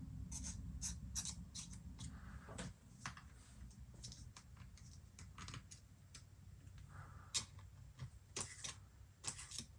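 Faint, scattered light clicks and taps as a blunt-tip syringe is worked along the edges of a laptop's glued-in battery cells to squirt solvent under them, over a low steady hum.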